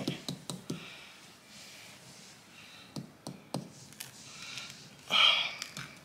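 Light plastic clicks and taps from handling a Karma water bottle and working its push-down powder cap, with three quick clicks about three seconds in and a short, louder rustle a little after five seconds.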